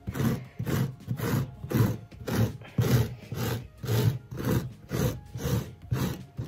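Handheld pet-hair remover with a wooden handle and metal blade raked back and forth over stair carpet in quick strokes, about two scrapes a second, pulling up embedded pet hair.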